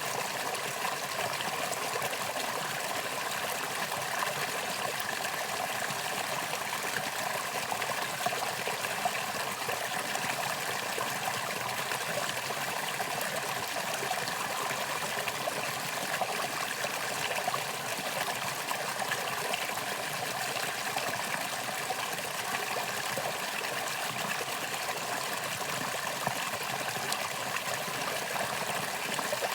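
Valley stream flowing steadily, a constant rush and trickle of water.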